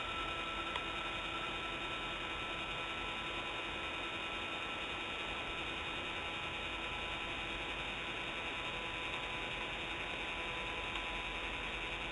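Steady electrical hum of a remote nest camera's pan motor while the camera pans, several held tones over an even hiss.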